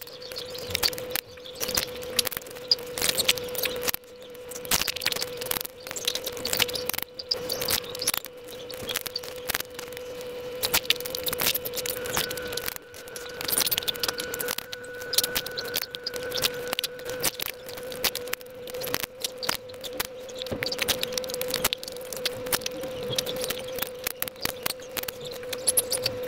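Close-miked eating of pani puri: crisp hollow puris cracking and crunching, with wet chewing and mouth sounds, making dense sharp crackles throughout. About halfway through comes a sip of the spiced water from a steel bowl. A faint steady hum runs underneath.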